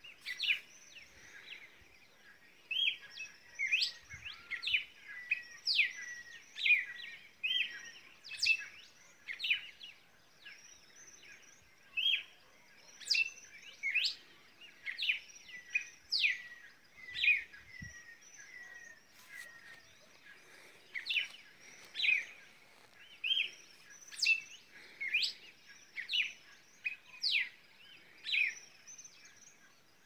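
Night chorus of animal calls: many short chirps, each sweeping quickly down in pitch and ending in a brief buzzy tail, coming in clusters of several a second with a couple of short lulls, over a faint steady high hiss.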